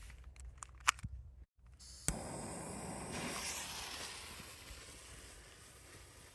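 Firework fountain igniting: a few clicks, a sharp crack about two seconds in, then a steady hiss of burning that swells and slowly fades.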